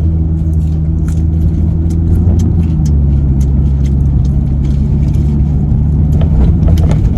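Car engine and road rumble heard from inside the cabin while driving, a steady low drone whose pitch shifts slightly about three seconds in, with small clicks and rattles over it.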